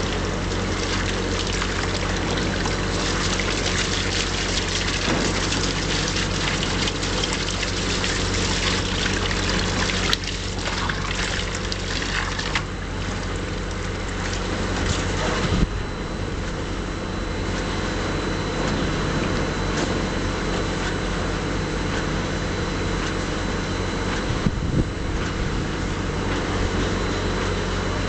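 Mortar pump mixer running steadily, a continuous mechanical hum with a few short knocks.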